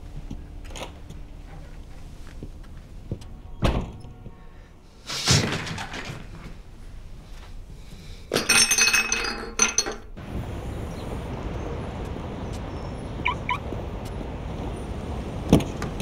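A thump, a loud rustling crash, then a china cup and saucer clattering and breaking as things are swept off a table. After that comes a steady outdoor traffic hum with one thud near the end.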